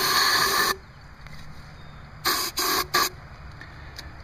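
Aerosol starting fluid sprayed into a small engine's carburetor intake: one hiss of under a second, then three short squirts about two seconds in. The engine is being primed to test for spark before a pull start.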